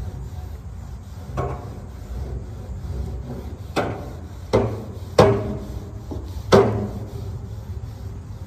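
Five sharp metal clanks, each ringing briefly, as the steel grates and body of a hot charcoal grill are knocked and scraped during cleaning; the loudest comes about five seconds in.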